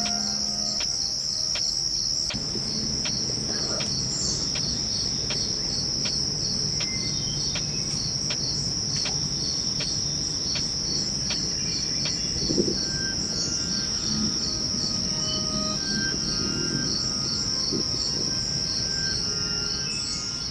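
Outdoor insect chorus: a continuous high-pitched trill with a steady pulsing beat.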